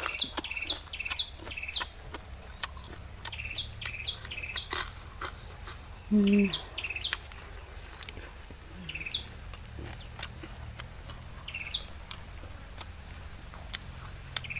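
Bird chirping in short, quick calls, often in runs of three or four, with pauses between, amid scattered sharp clicks and knocks. One brief low call comes about six seconds in.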